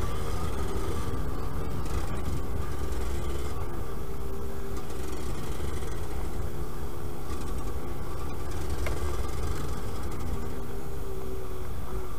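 Yamaha DT125 YPVS single-cylinder two-stroke trail bike engine running at fairly steady revs while riding, with the engine note wavering slightly.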